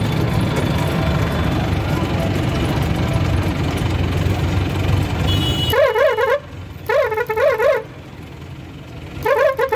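A vehicle engine runs steadily with a low rumble, then cuts off suddenly about six seconds in. A warbling electronic vehicle horn follows, its pitch swinging up and down about four times a second, sounding in three bursts.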